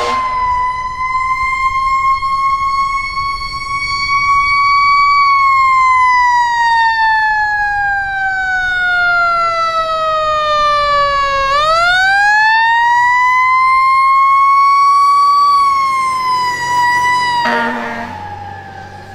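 Fire truck siren wailing: one long, slow fall in pitch, a quick rise back up about two thirds of the way through, and then a fall again. Near the end there is a short blast of the truck's horn.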